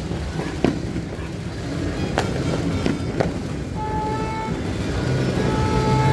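Firecrackers going off in scattered sharp bangs, four of them in the first half, over a continuous street din of engines. A horn blows a steady note briefly about four seconds in, then again, longer, near the end.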